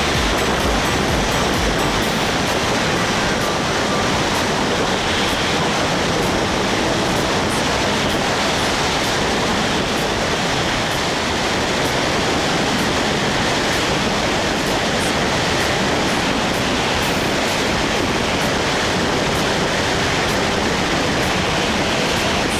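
Steady, loud wind noise of skydiving freefall rushing over the camera's microphone.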